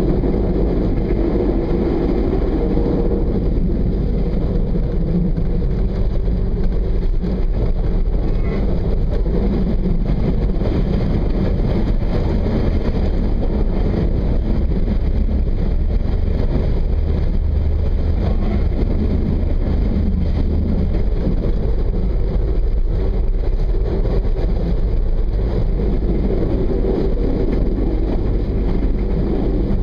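Regional train running along the line, heard from on board: a steady, unbroken rumble of the running gear and engine.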